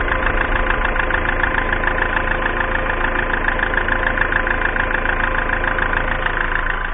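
Citroën C5 2.0 HDi four-cylinder common-rail turbodiesel idling steadily, with an even, rapid diesel clatter. This is an engine that smokes black and is fouled with carbon.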